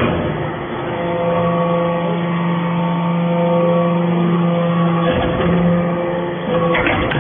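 Hydraulic metal shaving baler running: its motor and hydraulic pump give a loud, steady hum, with short rougher noisy spells about five seconds in and near the end.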